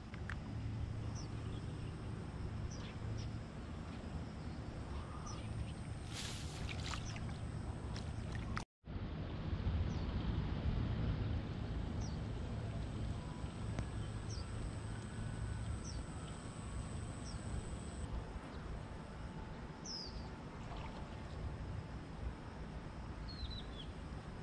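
Steady low wind rumble on the microphone, with short, high bird chirps now and then. The sound cuts out for a moment just under nine seconds in.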